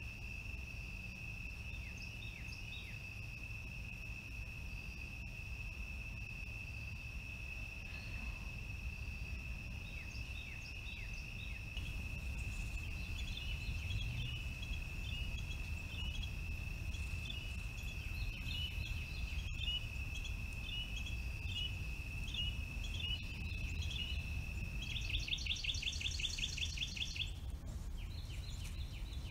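A steady, high-pitched insect trill with scattered short bird chirps over a low steady rumble. The trill stops near the end, where a rapid bird trill comes in.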